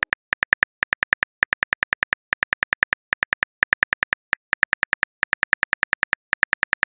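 Keyboard typing sound effect of a chat-story app: short high clicks in quick runs, about six a second with brief pauses between runs, one click per letter as a message is typed out.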